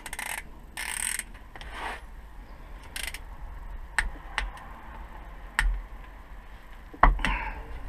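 A wrench tightening bolts on a Volvo XC90 rear differential casing to torque: a brief rustle, then a few scattered sharp metal clicks, the last about seven seconds in.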